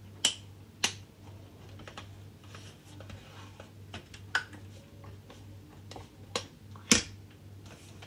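Plastic retaining clips of a dishwasher soap dispenser snapping into place as it is pushed into the door panel: five sharp clicks at uneven gaps, two in the first second, then singly near the middle and twice near the end, over a low steady hum.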